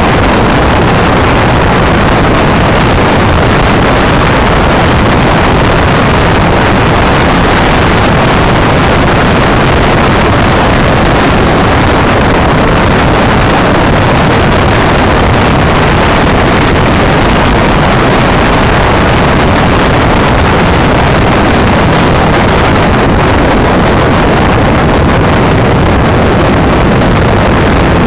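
Steady, loud rush of wind and road rumble on the microphone of an onboard camera on a Greenpower electric race car at speed, with no engine note.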